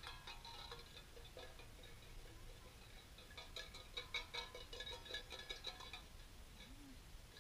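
Tin cans clinking and rattling together as they are shaken: a quick run of metallic clinks at the start, then a longer run of about two and a half seconds from about three and a half seconds in.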